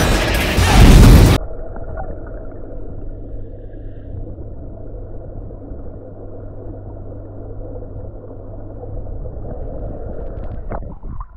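A loud, full-range boom from a title-graphic sound effect in the first second and a half, then it cuts suddenly to the muffled, low rumble of audio picked up with the camera under pool water, with a steady low hum.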